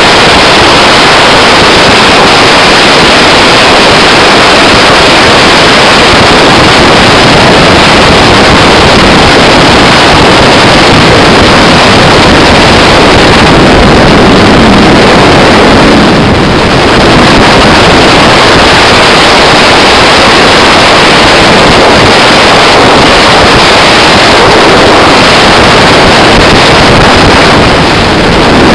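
Wind buffeting the microphone on a 21-foot Edge Marine Velocity LS jet boat running at speed, with the rush of water and engine blended into one very loud, unbroken noise. The level dips briefly twice, once about halfway through and once near the end.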